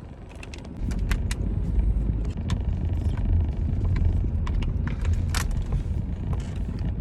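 Steady low road rumble of a car in motion, louder from about a second in, with scattered small clicks and taps.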